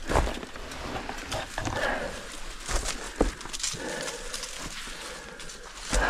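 Hiking boots stepping and scuffing on a steep rocky slope, with irregular knocks and clatters as footholds are found.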